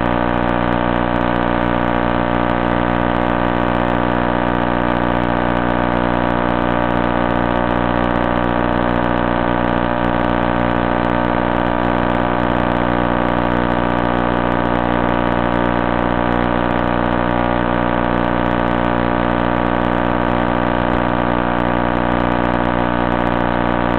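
Steady electrical buzz on the FPV video link's audio: a constant hum made of many evenly spaced tones that never changes. The plane's motor is stopped, drawing only 0.3 A.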